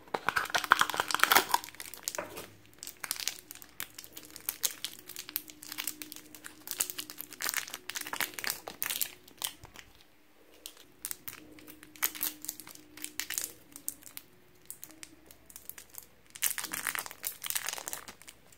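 Thin clear plastic wrapping crinkling and crackling in irregular bursts as hands peel it off tubes of Play-Doh. It is loudest in the first couple of seconds and again near the end.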